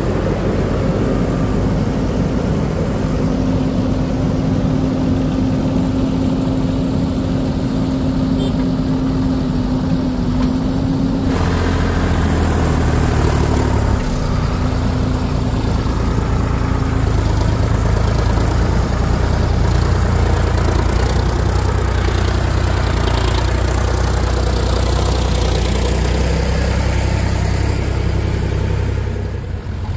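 Diesel engines of a JCB 3DX backhoe loader and a Sonalika tractor running steadily. About eleven seconds in, the sound changes abruptly from a steady hum to a deeper, lower engine drone.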